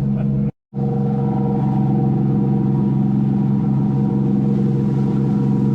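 Boat engines running steadily under way, a constant pitched drone that cuts out for a moment about half a second in.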